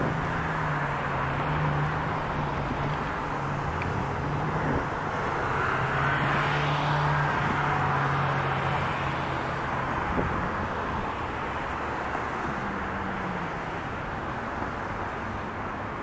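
Steady hum of urban traffic, with a low engine drone that fades out about ten seconds in and a brief swell around six to eight seconds in as a vehicle passes.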